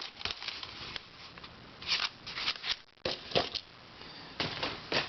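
Light handling of small plastic puzzles: scattered clicks and rattles as pieces are picked up and moved, in small clusters about two seconds in, around three and a half seconds and near the end.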